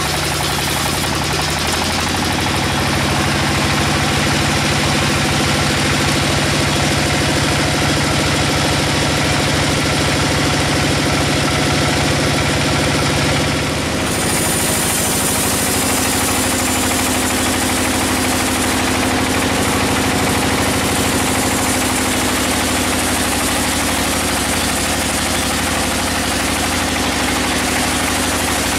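Band sawmill running with its blade cutting through a large hardwood log: a loud, steady machine noise with steady tones in it. The sound shifts abruptly about halfway through, to a hissier mix.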